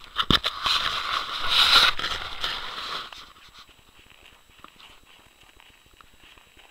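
Footsteps crunching and scraping on packed, icy snow. There is a loud rush of crunching in the first three seconds, then quieter, steadier steps.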